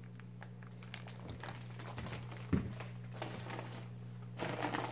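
Plastic fish-shipping bags crinkling and rustling as they are handled and set into an insulated shipping box, with a light knock about two and a half seconds in and a louder rustle near the end. A steady low hum runs underneath.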